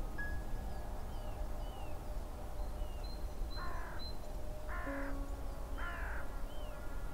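A bird calls three times, about a second apart, with faint high chirps from small birds in between.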